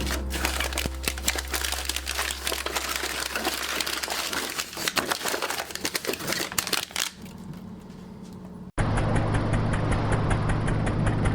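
Dense crackling and rustling clicks that thin out after about seven seconds. Then, after a sudden cut, an engine running steadily with a low hum and a fast, even ticking.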